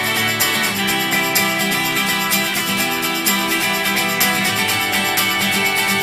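Background music: strummed acoustic guitar with a steady beat.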